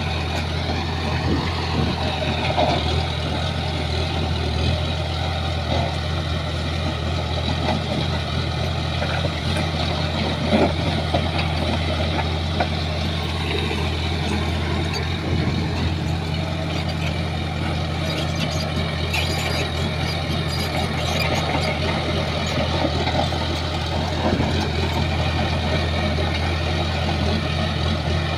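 Shantui bulldozer's diesel engine running steadily under load, with scattered clanks and knocks over the engine.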